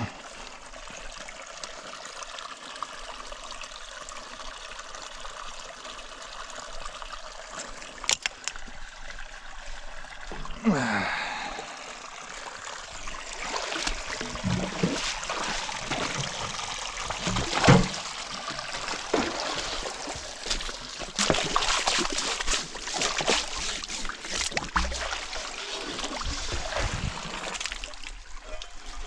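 Water trickling steadily, then from about a third of the way in, a long run of irregular splashes and sloshes, the loudest a little past halfway.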